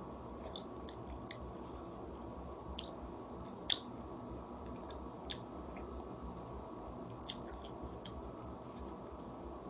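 Mouth sounds of eating a red bean ice cream bar: scattered soft lip smacks and wet clicks from licking and biting, the sharpest about four seconds in, over a steady low room hum.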